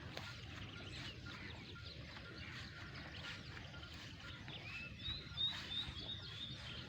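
Birds chirping: many short overlapping calls, with a faint note repeating at a steady pace and a quick run of about five high notes a little over two-thirds of the way through, over a low background rumble.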